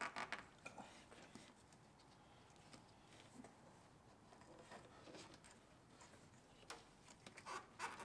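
Near silence, with faint scattered clicks and rustles of hands working a rubber piece into place in a car's engine bay, a few sharper clicks near the end.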